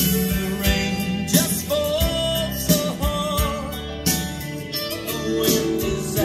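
A vinyl record playing on a Kenwood KD-5077 turntable through a Monoprice tube amplifier and Allison Four bookshelf speakers: a song with a singing voice over a steady beat.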